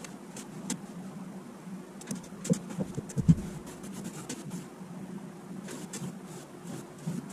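A rag scrubbing a wooden beadboard ceiling in short wiping strokes, cleaning off black mold with Clorox and water, with a few knocks of the hand against the boards about two to three seconds in. A steady low hum runs underneath.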